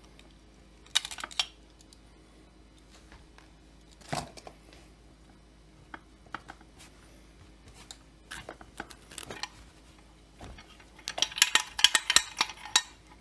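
Small metal parts and tools clinking and rattling as they are handled on a workbench: a short rattle about a second in, a knock around four seconds, scattered light clicks, then a longer run of clinking near the end.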